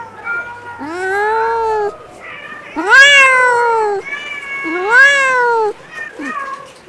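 Young kittens meowing: three long meows about two seconds apart, each rising then falling in pitch, the middle one the loudest, with a few short faint mews between them.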